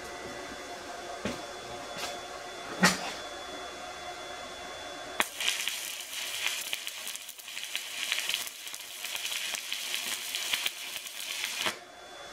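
Electric arc welding: the arc strikes suddenly about five seconds in and crackles and hisses for about six seconds, then cuts off as the weld is run out over the tacked joint. Before it come a few knocks, the sharpest about three seconds in.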